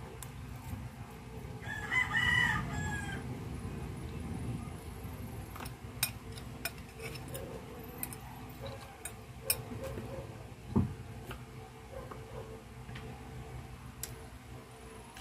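A rooster crows once, about two seconds in, a pitched call lasting about a second and a half. Scattered sharp clicks and a single low thump near the end follow.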